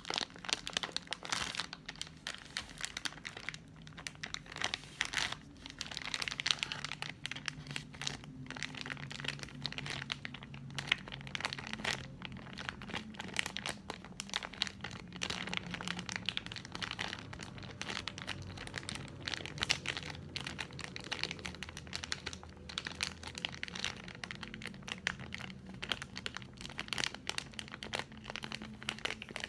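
Airheads candy wrapper crinkled and handled close to the microphone: a dense, continuous run of small crackles and rustles.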